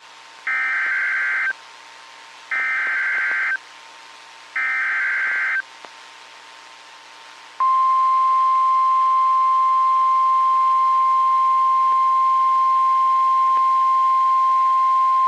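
NOAA Weather Radio emergency alert: three one-second bursts of SAME digital header data screeching over faint radio hiss, then about halfway through the steady 1050 Hz warning alarm tone begins and holds at one pitch. The tones signal that a weather warning broadcast is about to follow.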